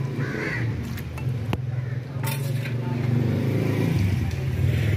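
A steady low motor drone, like a nearby engine running, growing louder toward the end, with a couple of sharp clanks of a metal ladle against the pot.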